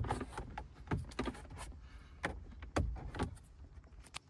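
Plastic trim tool prying a BMW i3's climate control panel out of the dashboard: a series of sharp, irregular plastic clicks and knocks as the panel's clips are worked loose.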